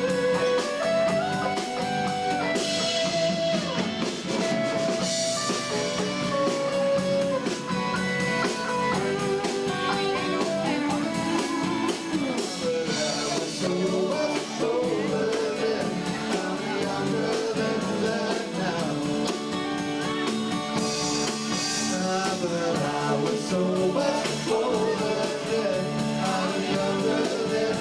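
Live blues-rock band playing: electric guitar lines with long held notes over bass and drums with a steady cymbal beat, and singing.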